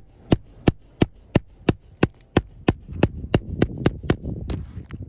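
Hammer tapping a precision nail puller in quick, even strokes, about three a second and some fifteen in all, to work its jaws under a roofing nail in an asphalt shingle. A steady high metallic ring runs under the taps and stops with the last one.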